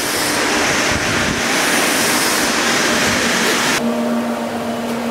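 A steady loud rushing noise that changes suddenly near the end into the steady hum of a machine shop full of CNC mills, with one low tone held throughout.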